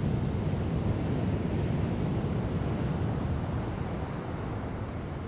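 Ocean waves breaking and rushing, with wind rumbling on the microphone. It is a steady low rush that eases a little near the end.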